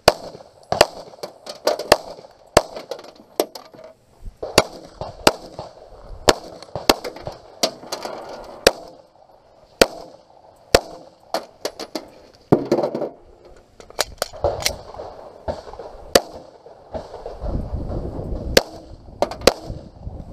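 Semi-automatic pistol firing a course of fire: about thirty sharp shots, mostly in quick pairs, with short pauses between strings.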